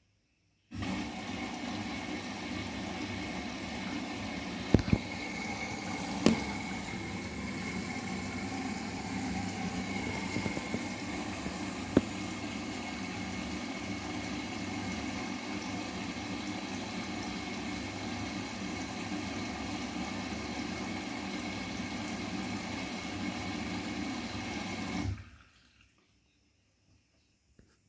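Water rushing through a Bosch WGA252Z0TR front-loading washing machine in a steady stream, starting suddenly and cutting off suddenly after about 24 seconds, with a few short knocks along the way.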